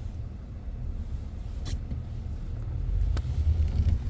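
Low rumble of a car's engine and tyres heard from inside the cabin, growing louder over the second half. Two short clicks stand out, one partway through and one later.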